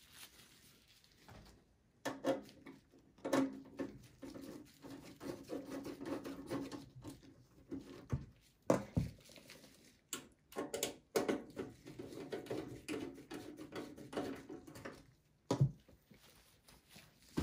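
Gloved hands handling a desktop PC's metal case and screwdrivers: irregular light clicks, taps and scraping.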